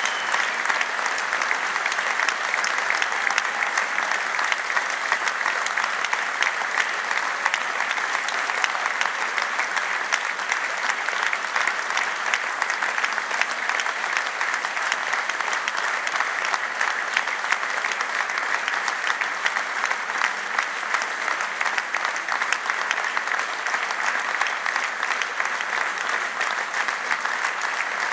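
A large crowd applauding steadily, a long ovation of dense clapping that does not let up.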